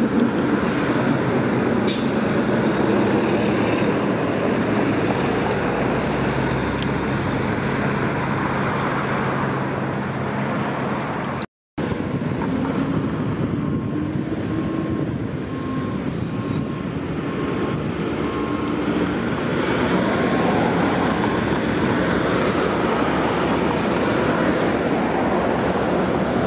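City street traffic led by a transit bus's engine as it pulls away through an intersection, followed by passing cars and a truck, with another transit bus approaching near the end. The sound cuts out completely for a moment about halfway through.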